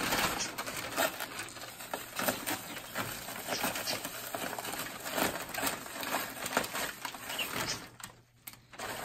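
Brown kraft packing paper and a plastic wrapping rustling and crinkling in quick irregular crackles as a longboard is unwrapped from its box, with a brief lull about eight seconds in.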